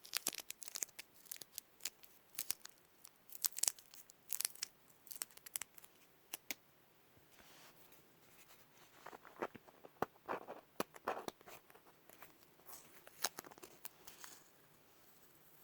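Adhesive tape being peeled off a surface, a fast series of sharp sticky crackles and tearing, sparser and softer for a stretch about halfway through before picking up again.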